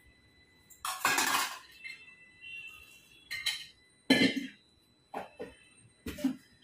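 Stainless-steel mixer-grinder jar, its lid and a steel bottle clinking and clattering as they are handled, in a handful of separate knocks about a second apart, the loudest about a second in.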